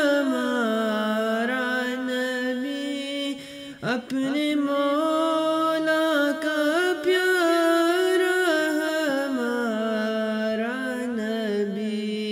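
Young male voices singing an Urdu naat unaccompanied, in long held notes that glide from pitch to pitch, with a short break for breath about four seconds in.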